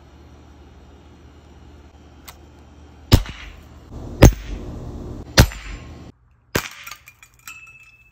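Crosman 2240 .22 CO2 pistol firing: three sharp shots about a second apart, a little over three seconds in, followed by a fainter sharp click.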